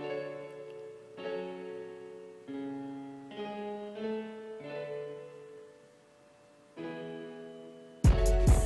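Background music: soft piano chords struck one after another, each fading away, then a much louder drum beat with deep bass cuts in near the end.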